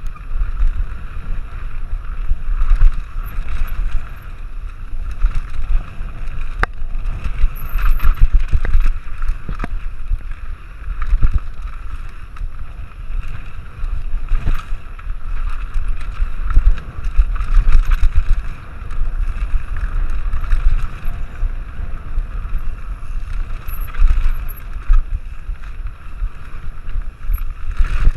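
Wind rushing over the camera microphone during a fast mountain-bike descent on a dirt trail, a continuous rumble. It is mixed with tyre noise and the scattered rattles and knocks of the bike over rough ground.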